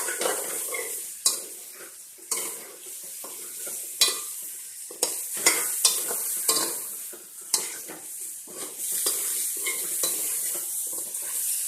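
Chicken and ground spices sizzling as they fry in a pot, while a spoon stirs them, knocking and scraping against the pot several times.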